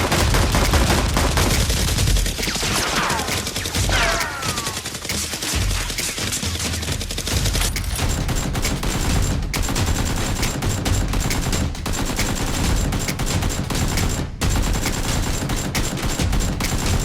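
Sustained rapid gunfire sound effects, many shots overlapping in a continuous fusillade, with a few quick falling whistles about three to four seconds in.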